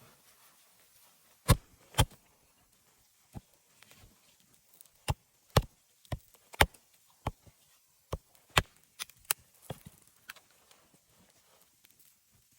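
Wood being chopped: about a dozen sharp strikes at uneven intervals, the two loudest about a second and a half and two seconds in, then a run of strikes in quick succession.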